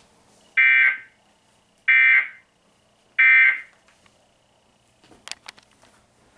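NOAA Weather Radio SAME digital data tones: three short, high-pitched, warbling bursts about 1.3 seconds apart, the End of Message code that closes an Emergency Alert System test. A few faint clicks follow around five seconds in.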